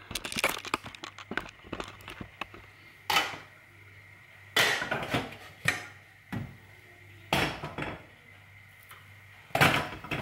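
Aluminium pot lid and small non-stick saucepan clattering and knocking against each other while a pancake is flipped. A run of light clicks comes first, then about five separate louder knocks and scrapes.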